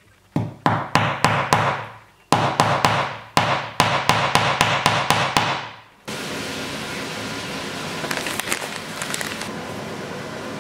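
Hammer tapping small nails into a board through a paper template: two quick runs of light, ringing blows, about twenty in all. About six seconds in, the tapping stops abruptly and a steady hiss takes over.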